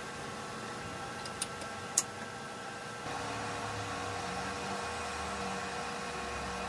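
Steady electrical hum made of several fixed tones, with two sharp metallic clicks about half a second apart around a second and a half in; the hum steps up slightly and grows a low drone about three seconds in.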